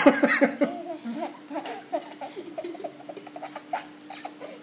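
A toddler laughing: a loud burst right at the start, then a run of short, quick giggles that fade toward the end.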